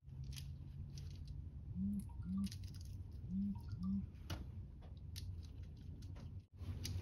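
Small clicks and scrapes of wires being pushed into a plastic terminal connector and a screwdriver working its terminal screws, over a steady low hum. Four short low blips come around the middle.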